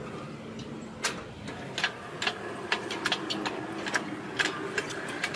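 Miniature live-steam locomotive moving along its track, with irregular sharp clicks and ticks from its wheels and running gear starting about a second in.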